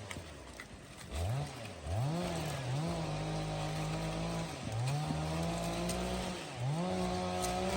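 Small engine revved up to high speed and held there for a second or two, then dropping back to idle, about four times in a row.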